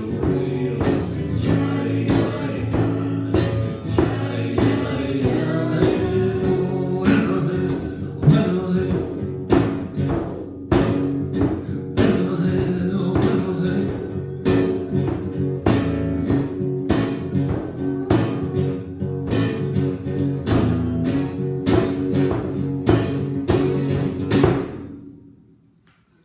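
Acoustic guitar strummed with a frame drum beaten in a steady beat, under singing. The song ends about a second before the close, the last chord dying away quickly.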